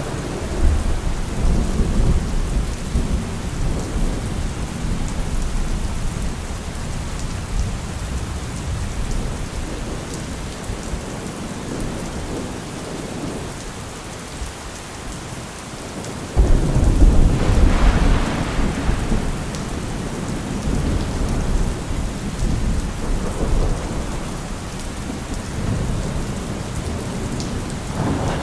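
Steady rain falling, with thunder rumbling in the distance. About sixteen seconds in a loud thunderclap breaks and rolls on for a few seconds before fading back into the rain.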